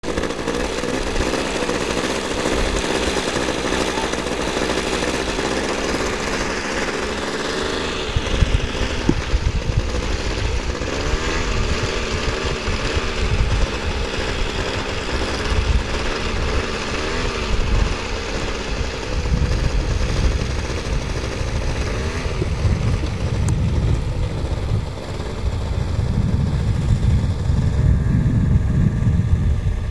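A lure-coursing machine's engine running, its pitch rising and falling as the speed of the lure line changes. From about eight seconds in, low rumbling gusts of wind buffet the microphone.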